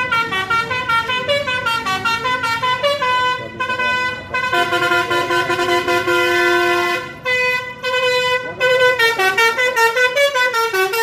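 Indonesian bus 'telolet' musical horn playing a quick tune of short horn notes, with a longer held chord about halfway through and brief pauses after it.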